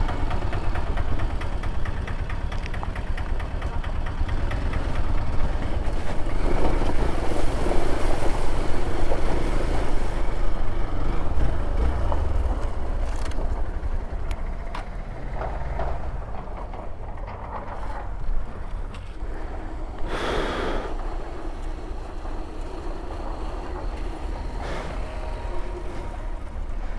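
Motor vehicle running on an off-road trail, with a heavy low rumble throughout and a short burst of noise about twenty seconds in.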